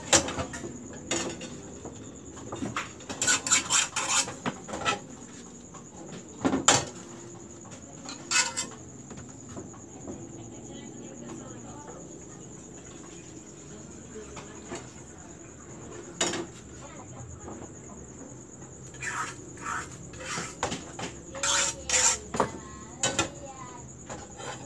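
Metal frying pans and a ladle clinking and clattering on a stovetop as thin pancake-skin batter is cooked, in scattered clusters of knocks. A steady high chirring of crickets runs underneath.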